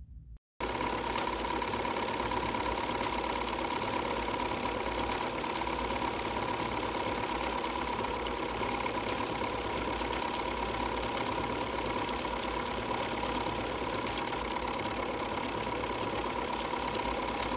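Bernina 480 sewing machine stitching continuously at a steady speed, sewing a wide decorative stitch with a wing needle. It starts abruptly about half a second in, then runs with an even motor hum.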